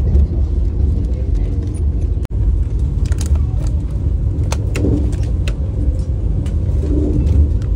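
Steady low running rumble inside a moving Vande Bharat Express electric train coach, with scattered clicks and rustles from snack packets being handled. The sound cuts out briefly about two seconds in.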